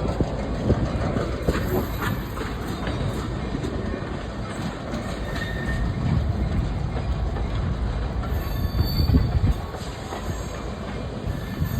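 Freight train cars rolling along the rails: a steady rumble of wheels on track with scattered clicks and a few brief, faint wheel squeals.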